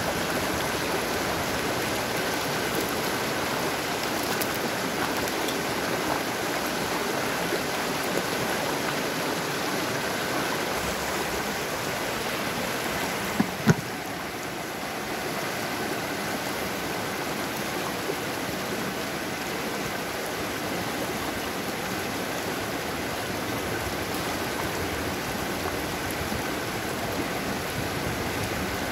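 Rushing water of a rocky stream running over rapids, a steady wash of noise. About halfway through come two brief sharp knocks, after which the water is slightly quieter.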